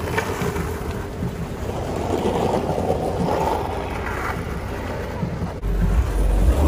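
Longboard wheels rolling over city asphalt, a continuous rumble mixed with car traffic close by. A heavier low rumble comes in near the end.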